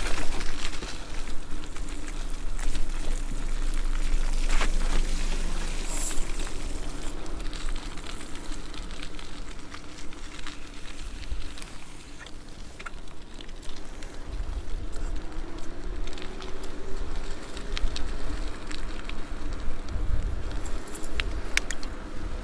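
E-bike tyres rolling over wet, slushy pavement, a steady hiss and patter with scattered small clicks and rattles, and wind rumbling on the microphone.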